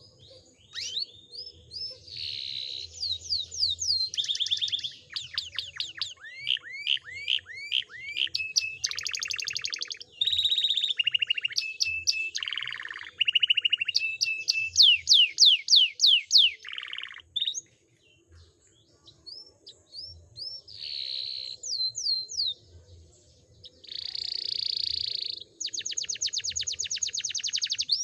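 Domestic canary singing a long, varied song rich in learned phrases: fast trills, runs of repeated down-sweeping notes and buzzy rolls, broken by a pause of a second or two a little past the middle.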